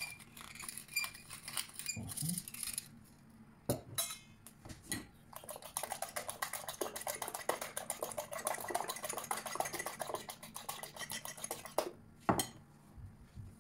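A pepper mill grinding over a bowl, then a fork beating eggs in a ceramic bowl: a rapid run of clinks and scrapes for about six seconds, ending in a single knock.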